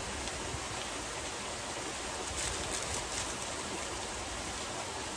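Steady splashing of a backyard pool's rock waterfall, with faint chewing over it around the middle.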